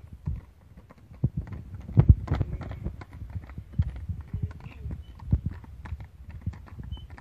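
Hooves of a pair of heavy draft horses clip-clopping on a paved road as they pull a cart, a quick uneven run of hard knocks, loudest about two seconds in.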